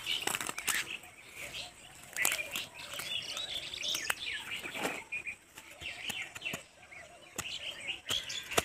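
Small birds chirping and twittering, with scattered sharp clicks among them.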